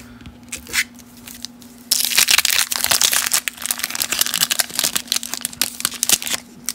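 Wax-paper wrapper of a 1991 Topps Traded baseball card pack being torn open and crinkled, starting about two seconds in and stopping just before the end, after a few light clicks. A faint steady hum runs underneath.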